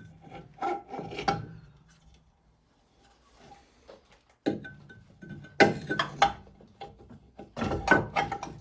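Metal suspension parts knocking and scraping as the steering knuckle is fitted back onto the lower ball joint, in clusters of clanks with a lull of a couple of seconds in the middle.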